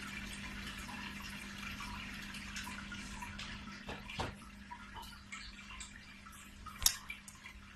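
Faint splashing or trickling water in a small room, over a steady low hum, with scattered small clicks; a sharper click comes about seven seconds in.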